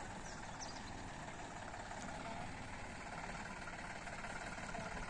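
John Deere tractor's diesel engine running steadily as it tows a loaded trailer.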